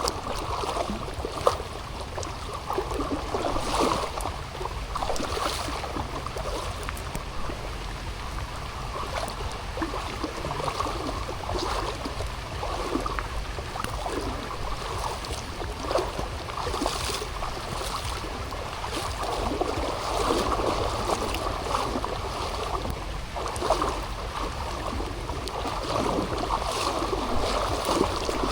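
Steady rain with running water, full of irregular drips and splashes, over a constant low rumble.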